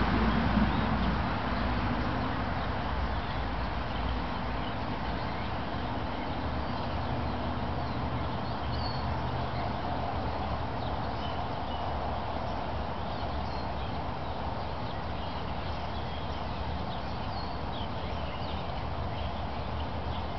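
Steady outdoor background noise with a low hum. A passing vehicle fades out over the first couple of seconds, and faint short high chirps come now and then.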